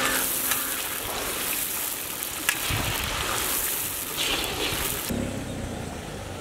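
Sliced onions deep-frying in hot ghee and oil, a dense, steady sizzle. About five seconds in the sizzle drops away to a quieter, lower rumble.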